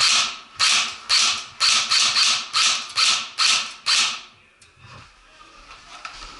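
Nine airsoft rifle shots fired in quick succession, about two a second, each a sharp pop ringing briefly inside a metal shipping-container room, stopping about four seconds in.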